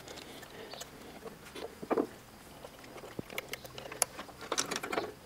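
Faint metallic clicks and light scrapes of a screwdriver working the tiny screws in a car distributor, then small clicks as the contact points and condenser are lifted out. The clicks are scattered and irregular, with a louder one about two seconds in and a cluster near the end.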